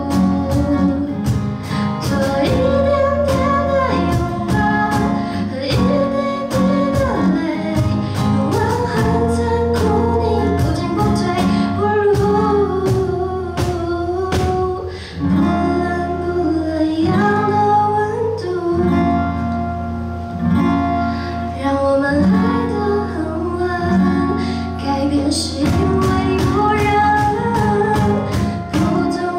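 Young woman singing a song into a microphone, accompanied by a strummed acoustic guitar.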